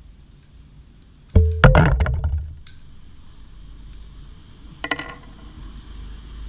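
A power tool run in one short burst of about a second, with a motor whine and rapid hammering clicks, loosening the Allen bolt at the bottom of a motorcycle fork leg. A few short metallic clinks follow about five seconds in.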